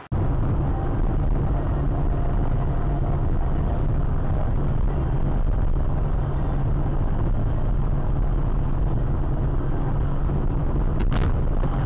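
Steady low rumble of a car on the move, engine and road noise, with a couple of brief clicks near the end.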